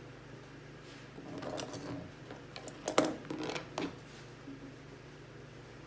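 Metal grooming shears snipping and clicking through a dog's coat in a few short, irregular bursts, the sharpest click about three seconds in.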